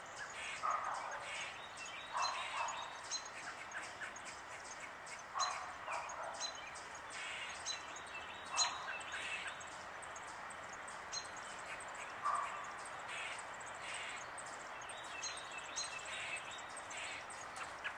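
American robins at the nest chirping: short calls every one to four seconds, with fainter high peeps between them, over a steady outdoor background hiss.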